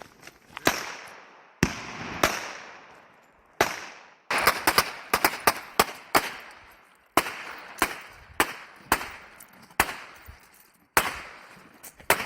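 Gunfire at an outdoor shooting range: irregular single shots and quick strings of shots, some overlapping, each followed by a decaying echo.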